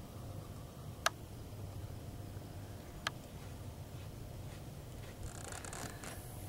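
Two faint sharp clicks about two seconds apart over a low steady rumble, with a brief rustle near the end.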